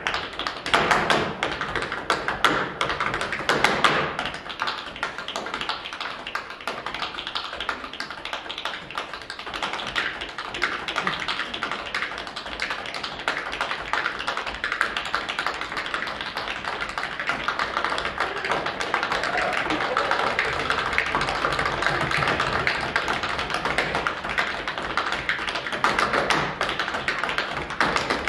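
Tap dancing: the metal taps on the dancers' shoes strike a wooden floor in fast, dense, unbroken rhythms.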